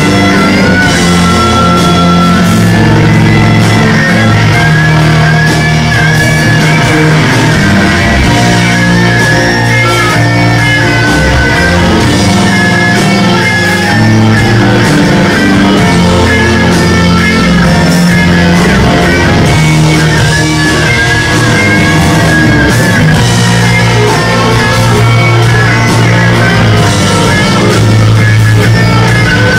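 A rock band playing live, an electric guitar lead holding and bending notes over bass, drums, keyboards and cello.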